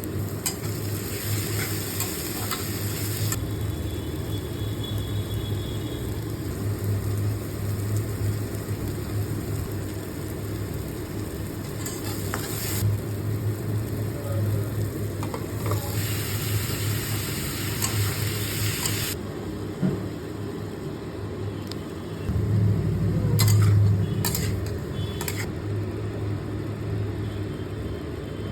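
Food sizzling and frying in a pan while a utensil stirs and scrapes it, over a steady low hum. The sizzle grows louder and fades several times, and there are a few sharp clicks of the utensil on the pan about 23 to 25 seconds in.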